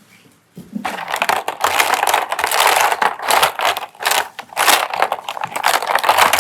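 Slime being squeezed and pressed by hand, giving a dense crackling, crunching sound in several bouts with short pauses.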